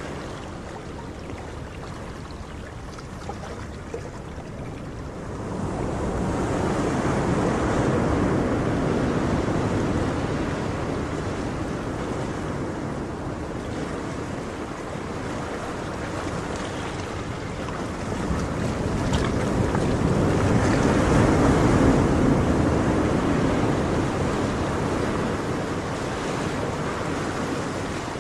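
Ocean surf: an even rush of waves washing in that swells twice, about a third of the way in and again about three-quarters of the way in, easing between the swells.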